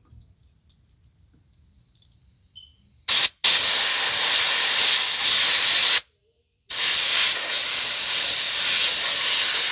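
Compressed-air blow gun blowing out a Rinnai tankless water heater's filter to clear gunk from it. About three seconds in there is a short puff of hissing air, then two long blasts with a brief break between them.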